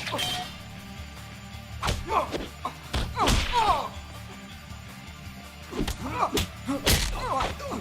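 Cartoon fight sound effects over a music score: several hard punch and kick hits with swishing falling sweeps and grunts, clustered about two to four seconds in and again near the end.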